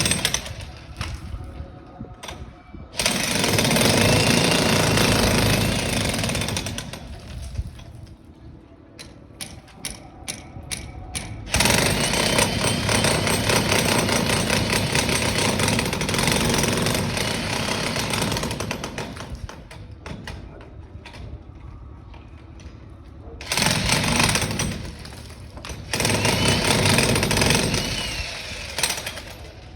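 Loud construction machinery or a power tool running in several long bursts of a few seconds each, with quieter gaps holding scattered knocks between them.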